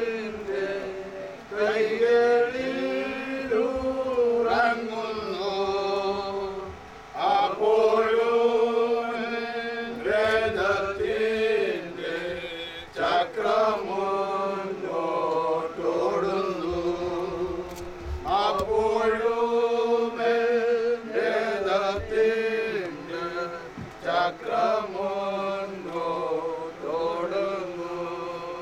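A group of voices singing a slow Christian funeral hymn in Malayalam, in long held phrases that step from note to note, with short breaks for breath between lines.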